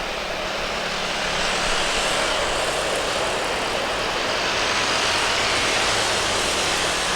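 Jet airliner engine noise, most likely a Boeing 737-800's turbofans: a steady rushing noise with no distinct tone that swells about a second and a half in and holds.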